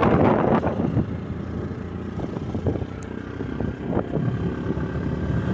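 Wind buffeting the microphone of a moving motorcycle, heavy at first and easing about a second in. Under it run the motorcycle's engine and road noise.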